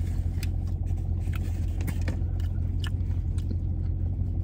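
Close-up chewing and biting of a fried chicken sandwich, with scattered short clicky mouth sounds, over a steady low hum inside a car.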